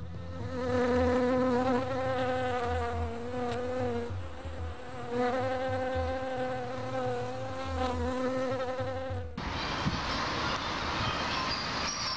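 A buzzy, insect-like droning tone with a slight wobble, held in two long stretches with a short break between them. About nine seconds in it cuts off to a steady hiss of rain and wind on the microphone.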